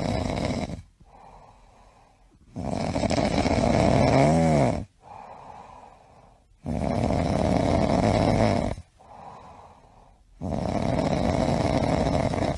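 Snoring: four long, loud, rhythmic snores about every four seconds, with quiet breaths between. A short whistling note sounds in the second snore.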